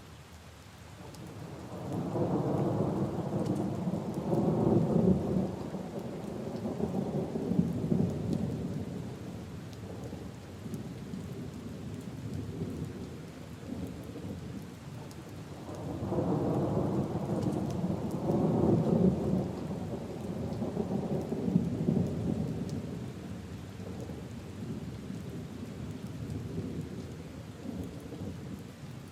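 Steady rain falling on puddles and leaves, with two long rolls of thunder: one building about two seconds in, the other about halfway through, each rumbling for several seconds before fading back to the rain.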